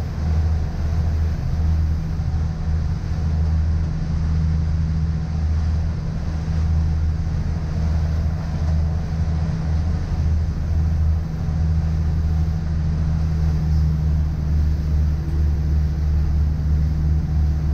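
Motor cruiser under way at speed: its engines drone steadily, with a constant rush of water and wind over the hull.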